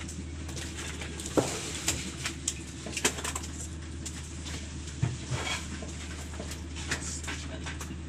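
Steady low hum of an engine running on a fishing boat, with scattered sharp knocks and thumps as tuna are hauled out of the hold and handled on the deck.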